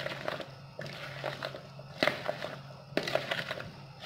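A spoon stirring thick gram-flour batter with sliced potato and onion in a plastic bowl: repeated scraping strokes, with sharper knocks of the spoon against the bowl about two and three seconds in. A low steady hum runs underneath.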